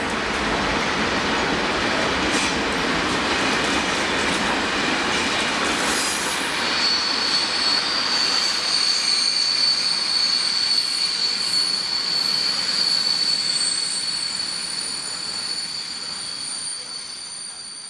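Train running through a station, its rolling noise joined about a third in by a steady high-pitched squeal from the wheels or brakes that holds on as the whole sound fades away near the end.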